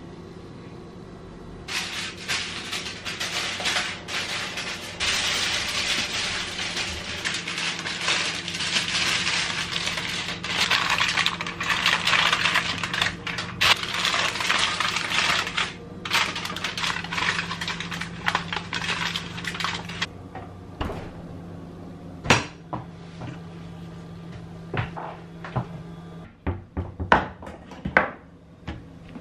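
Aluminium foil crinkling and crackling as it is pulled over a glass baking dish and crimped down around the rim. After that come a few separate knocks, then sharp clicks in quick succession near the end, fitting high-heeled shoes on a wooden floor, over a steady low hum that stops a few seconds before the end.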